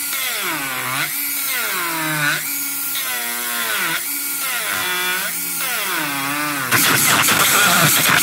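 Handheld rotary tool carving dry deadwood, its motor whine dipping in pitch and recovering about once a second as the bit bites into the wood and eases off. About two-thirds of the way in, it turns abruptly into a louder, harsher grinding.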